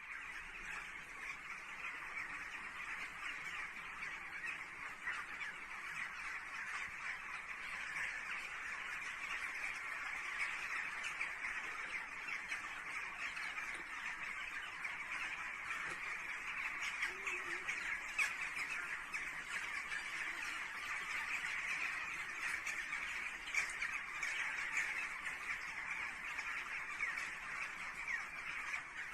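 A large flock of birds calling all at once in a dense, continuous chatter.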